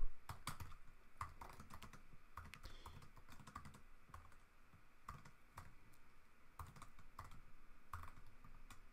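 Typing on a computer keyboard: a quiet run of separate, irregularly spaced keystrokes.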